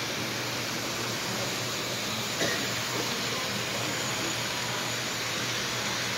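Steady rolling noise of an O-scale model freight train running on the layout's track, with one sharp click about two and a half seconds in.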